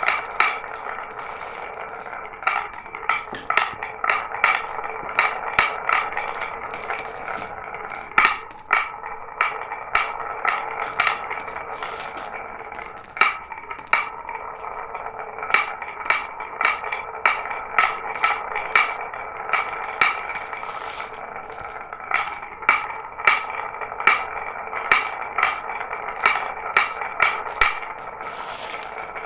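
Glass marbles rolling down a marble run track, a steady rolling rattle with frequent sharp clicks as marbles knock against each other and the track.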